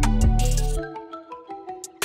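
Background music with a beat; about a second in, the bass and drums drop out, leaving a light melody of short pitched notes.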